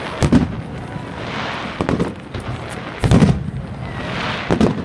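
Aerial firework shells bursting in a large display: booms about every second and a half, the loudest about three seconds in, with a hiss between them.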